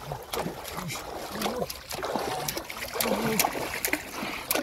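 A large hooked fish thrashing at the water's surface on a bamboo-pole set line, throwing up repeated, irregular splashes.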